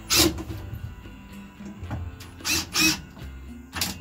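Cordless drill driving screws in short bursts: one at the start, two close together about two and a half seconds in, and one near the end. Background music plays underneath.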